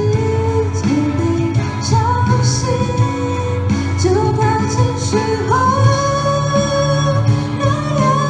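A woman singing a Mandarin pop ballad into a handheld microphone, amplified, over a recorded backing track with bass and a steady drum beat. Her melody moves in long held notes that slide up into each phrase.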